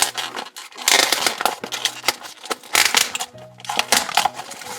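Background music with steady low notes, over a few bursts of crinkling and tearing plastic packaging as a toy 5-pack is opened.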